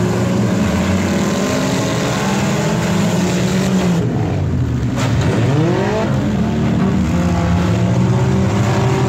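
Several demolition-derby car engines running at once on the track, overlapping, with one engine revving up and back down about halfway through.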